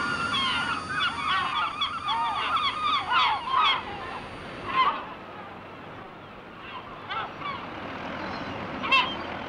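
Seabirds on the cliffs calling, many calls overlapping at first, then thinning to a few scattered calls, with one loud call near the end.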